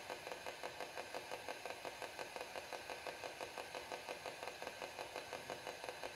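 Quiet, steady mechanical pulsing from a small machine or device, about five even beats a second.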